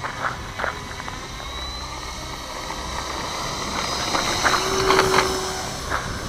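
Radio-controlled Pilatus PC-6 Turbo Porter model on its takeoff run, its motor and propeller whine rising steadily in pitch as it speeds up toward the listener. A few sharp knocks come about four to five seconds in.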